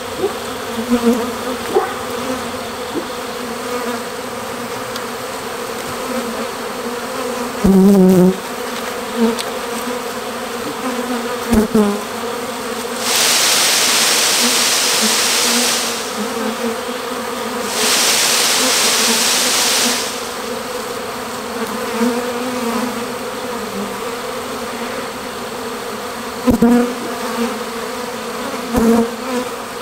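A honey bee swarm buzzing steadily, with single bees droning loudly past close by now and then, their pitch bending as they pass. Twice, about halfway through, a loud rustling hiss lasts two to three seconds as the tree limb holding the swarm is shaken.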